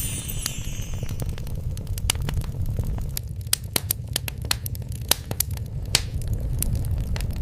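Wood fire crackling: many irregular sharp pops and snaps over a steady low rumble.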